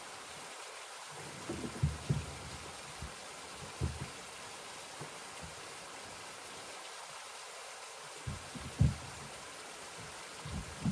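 Low, dull knocks of a wooden plank trough being handled and set down on its log supports: a few thumps about two seconds in, one near four seconds, and more around nine seconds and at the end. Under them runs a steady hiss of stream water.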